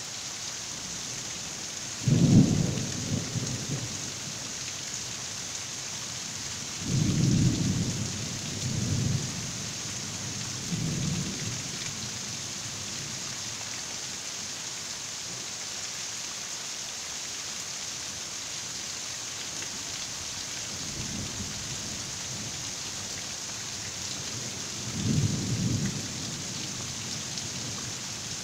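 Thunderstorm: heavy rain falling in a steady hiss, with several rolls of thunder. The loudest clap comes about two seconds in, a long rumble follows around seven to nine seconds, a shorter one near eleven, a faint one a little past twenty, and another a few seconds before the end.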